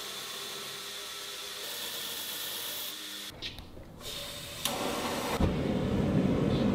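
Belt grinder grinding a steel billet: a steady grinding hiss that breaks off a little past three seconds, then starts again louder, with more low rumble.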